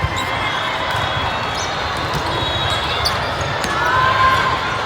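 Busy indoor volleyball hall: sharp thuds of volleyballs being hit and bouncing over a steady din of voices in a large, echoing room, with a few short squeaks near the end.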